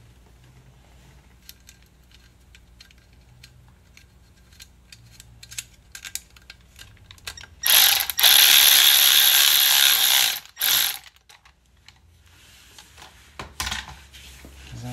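Hand ratchet and socket clicking in short strokes while tightening the hose clamp on a replacement fuel pump. About eight seconds in comes a louder run of fast, continuous ratcheting for about two and a half seconds, then a shorter one.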